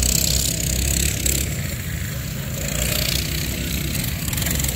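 Small single-cylinder engines of box-stock racing minibikes running around a dirt track, heard as a steady mechanical drone.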